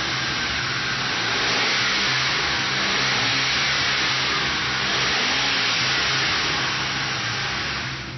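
1999–2004 Ford Mustang engine running and being revved, rising and falling a little in loudness, then stopping near the end.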